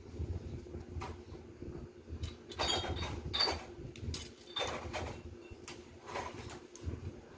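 Handling noise from a plastic bottle and a hot glue gun: a series of short knocks, clicks and scrapes, the busiest cluster about three seconds in, over a faint steady hum.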